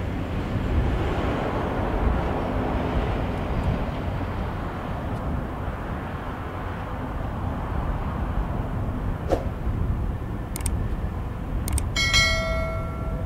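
Airbus A350's Rolls-Royce Trent XWB engines at takeoff power, a steady rumble heavy in the low end as the jet lifts off and climbs. Near the end come a few sharp clicks, then a ringing bell chime from the subscribe-button animation.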